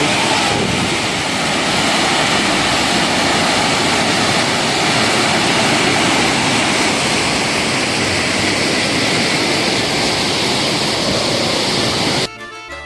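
Steady, loud rush of the Montmorency Falls, close to the falling water. It cuts off suddenly just before the end as music begins.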